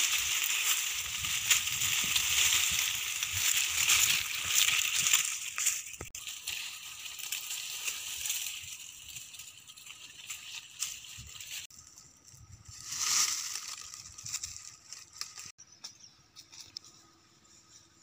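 Dry dead leaves and brittle twigs crackling and rustling as someone pushes through a dead thicket, loud and dense for the first six seconds. After that the rustling turns fainter and patchier, with one brief louder swell about thirteen seconds in.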